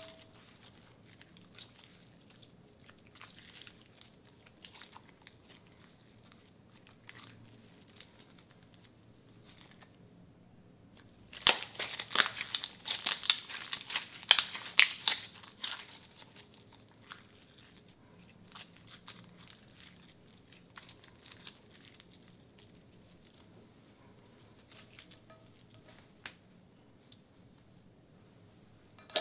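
Pink slime being kneaded and squeezed by hand: faint sticky crackles, then about four seconds of loud, rapid clicks and pops near the middle as it is squeezed in the fists.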